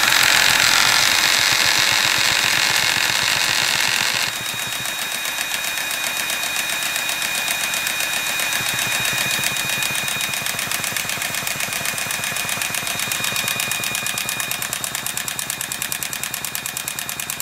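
Small nitro glow engine of an HPI Firestorm RC truck running from a cold start. It runs loud for about four seconds, then settles to a steady, quieter idle with a rapid, even firing rhythm while it warms up.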